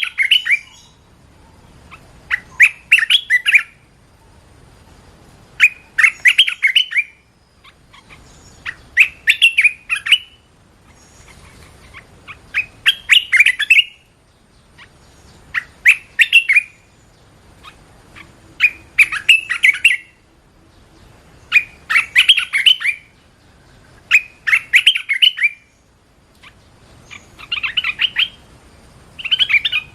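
Bulbul singing: short phrases of song, each about a second long, repeated roughly every three seconds with short pauses between.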